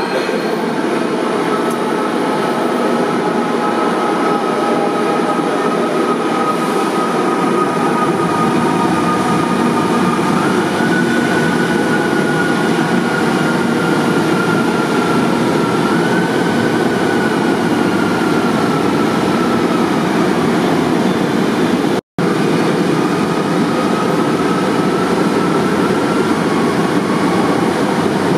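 Manila MRT Line 3 light-rail trains (ČKD Tatra cars) running at an elevated station: a steady loud rumble of wheels on rail with a high whine that drifts slowly in pitch. The sound drops out for an instant about 22 seconds in.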